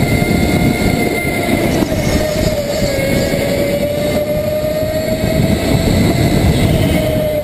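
Go-kart driven at speed, heard onboard: a steady motor whine that sags a little in pitch through a turn about halfway and climbs again near the end, over a loud rumble from the chassis.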